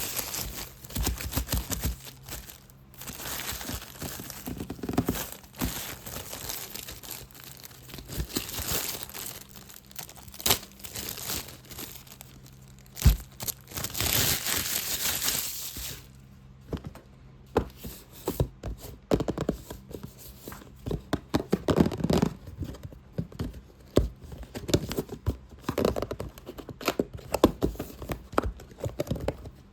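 Fast, aggressive ASMR scratching and crinkling on a box, a dense scratchy rustle full of small clicks. About halfway through it gives way to quick separate taps and knocks on the box.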